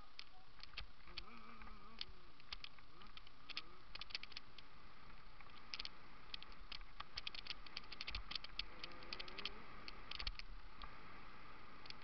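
Mountain bike and its mounted camera rattling with irregular sharp clicks as it rolls over a rough paved lane, busiest in the second half.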